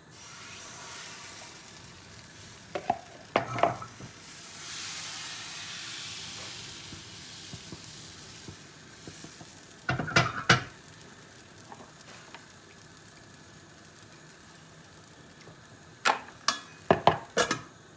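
Appam (hopper) batter sizzling in a hot non-stick appam pan as it is poured in and swirled, the hiss swelling for a few seconds and then fading. Short clatters of the pan and bowls being handled come three times, the last a quick run of knocks near the end.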